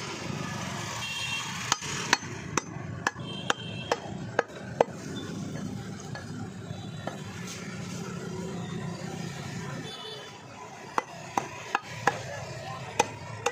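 Butcher's heavy knife chopping mutton on a wooden tree-stump block: a run of about eight sharp chops, roughly two a second, starting a couple of seconds in, then a few more chops near the end, over steady background noise.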